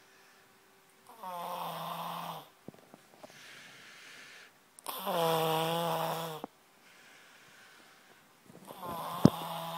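Snoring: three long, loud snores about three and a half seconds apart, with quieter breathy exhales between them. A sharp click sounds near the end.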